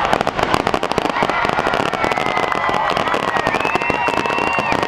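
A fireworks finale barrage: a dense, rapid run of bangs and crackles from many shells bursting at once, with a few high tones sliding in pitch above it.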